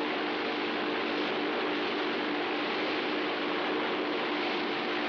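Thai long-tail speedboat engine running with a steady drone under an even rushing hiss.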